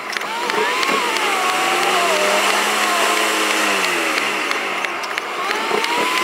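A car driving on a wet road, heard from inside the car, with steady road hiss. The engine note drops, holds level for a few seconds, then drops again.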